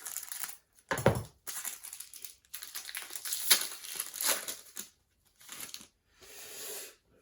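A 2019-20 Panini Certified basketball card pack's wrapper being torn open and crinkled by hand, in irregular rustling bursts with short pauses.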